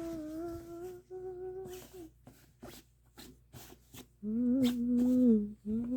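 A woman humming a tune to herself in long held notes: one steady note for the first two seconds, a pause with a few soft clicks, then a lower held note from about four seconds in.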